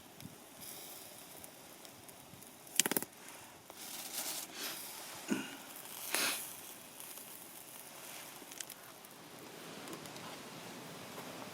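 Wood campfire burning: a faint steady hiss with a few sharp pops and crackles, the loudest about three seconds in and two more around five and six seconds.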